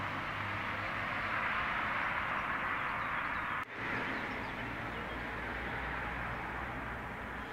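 Steady urban road traffic noise, a constant wash of distant traffic with a low hum beneath it. It breaks off for an instant a little past halfway, then carries on.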